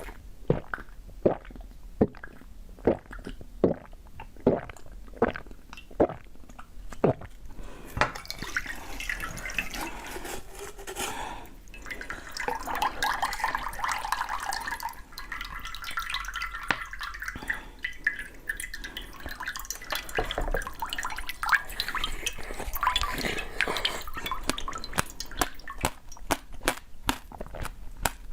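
Eating sounds: regular sharp crunches, about one to two a second, for the first eight seconds, then a denser stretch of wet, liquid-sounding chewing.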